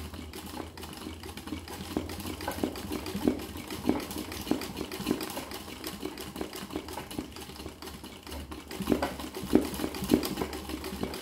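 Sewing machine running at speed for free-motion embroidery, its needle stitching fast through a hooped terry towel: a steady low motor hum under a dense, rapid ticking of needle strokes. The hum eases off for a moment about halfway, then picks up again.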